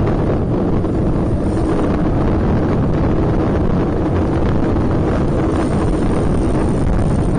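Wind buffeting the microphone of a camera mounted on a moving road bike: a steady, loud low rumble with no breaks.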